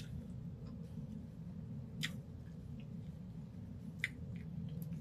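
Quiet eating sounds: chewing, with two sharp clicks of a fork against a plate, about two seconds in and again near four seconds, over a steady low hum.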